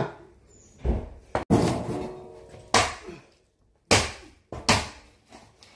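A heavy cleaver chopping through a pork hock onto a plastic cutting board: about five hard, separate strikes roughly a second apart, one of them followed by a short ring.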